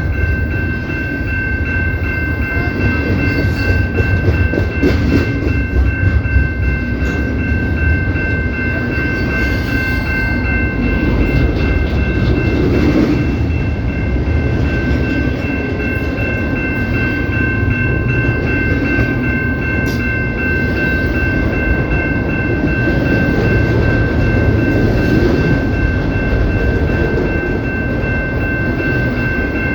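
CPKC train rolling past: a steady, loud rumble of wheels and cars on the rails, with a constant high-pitched ringing of several tones held throughout.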